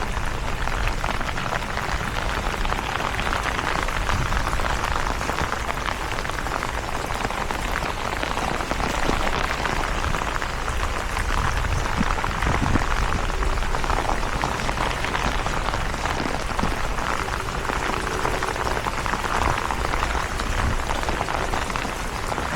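Steady rain falling, a dense even patter.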